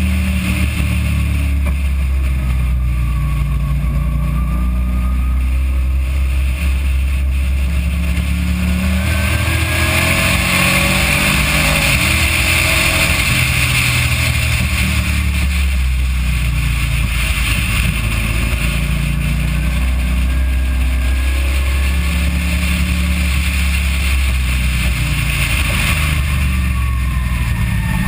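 Car engine and wind noise at speed in a poor-quality, muddy recording with a constant heavy low rumble. The car pulls hard up a straight through third into fourth gear, with the rush of air strongest midway at top speed. Near the end the engine note falls as the car slows for a corner.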